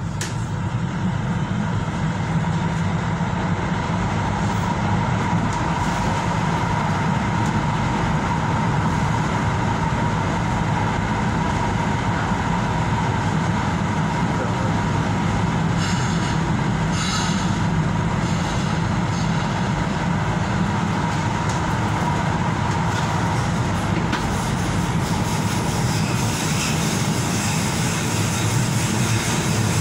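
Tyne and Wear Metro train running through a tunnel, heard from inside the carriage: a steady rumble of wheels on rail with a steady whine, and a few clicks about halfway through.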